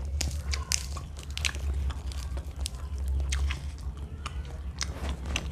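Close-miked chewing of raw lettuce: a run of crisp, irregular crunches and wet mouth clicks, over a steady low hum.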